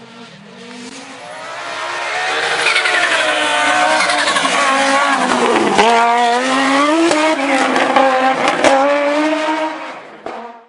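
Rally car engine at high revs, growing louder as it approaches, its pitch dropping about halfway through and climbing again as it accelerates, with a few sharp pops. It fades near the end and cuts off abruptly.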